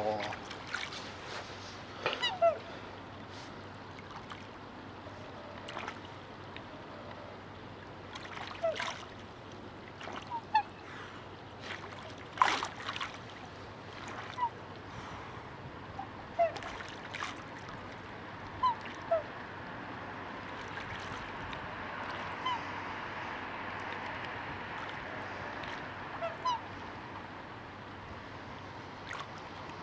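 A courting pair of black swans calling: short, high bugling notes, one at a time, every second or two, with a few sharp clicks in between.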